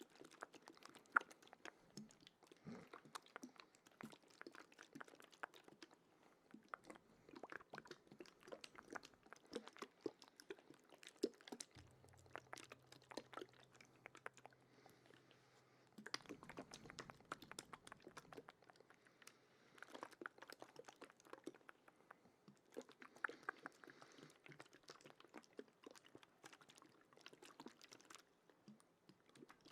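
Faint, wet ASMR mouth sounds close to the microphone: a steady, irregular stream of quick clicks and smacks.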